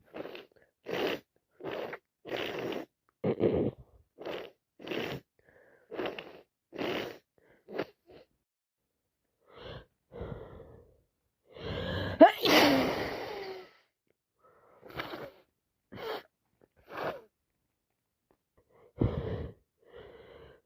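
A woman with a heavy head cold taking short breaths, about one a second, with one loud sneeze about twelve seconds in, then a few more short breaths.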